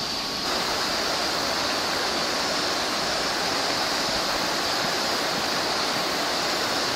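Shallow rocky river rushing over stones and riffles: a steady, even rush of water that grows slightly louder about half a second in.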